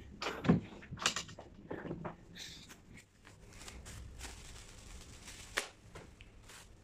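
A thin plastic bin liner being handled and shaken open with gloved hands: a short crinkling rustle, with a few sharp knocks and clicks, the loudest in the first second or so and another about five and a half seconds in.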